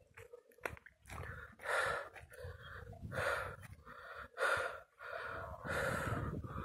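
A person breathing hard, quick audible breaths in and out about once a second, out of breath from climbing a steep hill.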